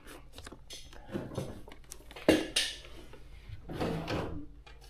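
Objects being handled on a workbench: scattered light knocks and clatter, with one sharper knock about two seconds in.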